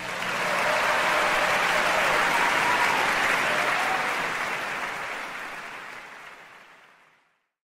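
Audience applause, steady at first, then fading out over the last few seconds.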